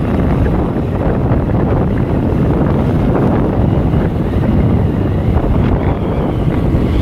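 Wind buffeting the microphone on a moving motorcycle, mixed with the bike's running and road noise: loud and steady.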